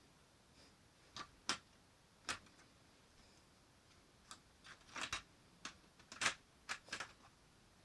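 Sharp plastic clicks of a Lego pump-action shotgun's mechanism being worked by hand: a few single clicks, then a quicker cluster of clicks in the second half.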